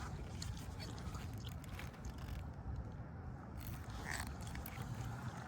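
Faint scraping and small clicks of wire ends being handled and worked into gel-filled dolphin-nose (B) splice connectors, over a low steady rumble.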